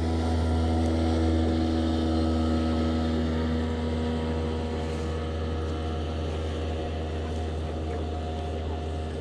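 Motorboat engine running at a steady low drone that slowly grows quieter.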